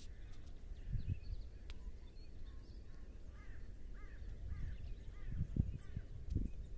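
Gusty low rumble of wind on the microphone. Through the middle, a bird calls a quick series of about six short falling notes.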